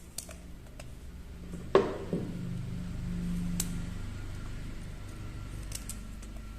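Pieces of chopped ginger being dropped into a mixer-grinder jar: one sharp knock a little under two seconds in, a smaller one just after, and a few faint clicks, over a low steady hum.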